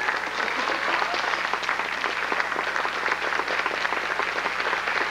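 Audience applauding, a dense, even clapping that carries on steadily.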